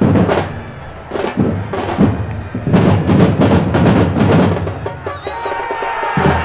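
Background music with loud, repeated drum hits.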